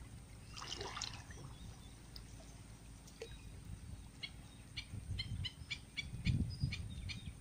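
Faint sloshing of floodwater as men wade through it while laying out a trammel net, strongest a little after six seconds in. A bird calls in a quick series of short high chirps in the second half.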